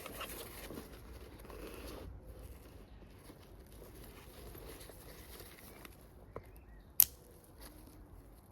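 Rustling and scraping of a backpack's nylon fabric and straps being handled, busiest during the first two seconds, with one sharp click about seven seconds in.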